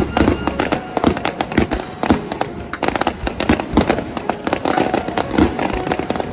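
Fireworks going off in quick succession, many sharp bangs and crackles overlapping one another.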